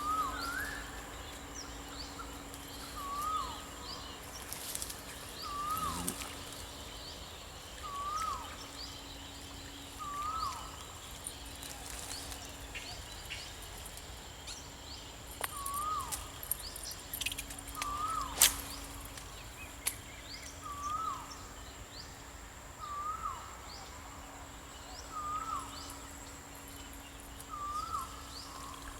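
A bird repeating a short call about every two seconds over outdoor ambience with a faint steady hum. A sharp click comes a little after halfway.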